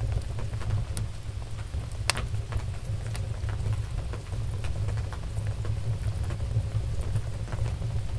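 Wood fire crackling in a fireplace: scattered sharp pops, one louder about two seconds in, over a steady low rumble.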